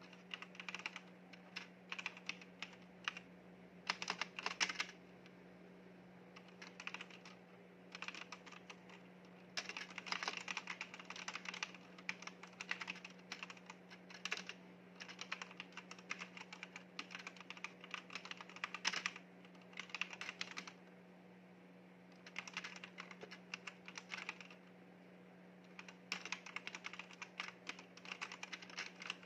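Typing on a backlit mechanical keyboard: fast runs of key clicks that break off for a second or so several times, then pick up again. A faint steady low hum sits underneath.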